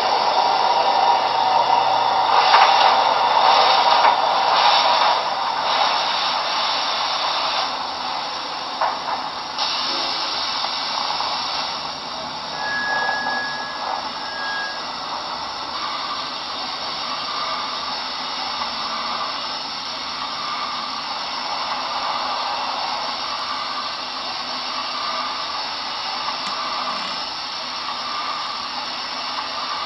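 Onboard sound system of a Broadway Limited Paragon4 Santa Fe 4000-class 2-8-2 model steam locomotive, standing idle after start-up, playing a steady steam hiss from its small speaker. The hiss is louder and rougher for the first several seconds, and a soft even pulsing joins in from about halfway through.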